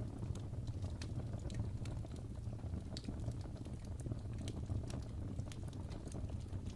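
Wood fire burning in a fireplace, crackling and popping with irregular sharp snaps over a steady low rumble of the flames.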